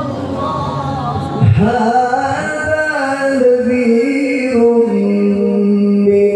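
A male qari's voice reciting the Quran in melodic tilawah style: one long ornamented phrase that slides between notes and settles into a steady low held note near the end.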